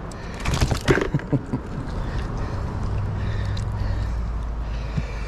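Water splashing and sloshing beside a boat for about a second, as a big hooked bass thrashes at the surface while it is landed. Then a steady low hum.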